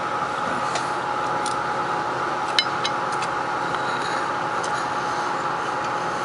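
Steady background hum with a faint high whine, under a few light clicks and taps of a fork on a dinner plate while eating; the sharpest tap comes about two and a half seconds in.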